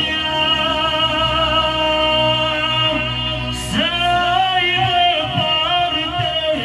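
A man singing into a microphone over a backing track, amplified through a loudspeaker: long held notes with a wavering vibrato, with a new phrase beginning about four seconds in.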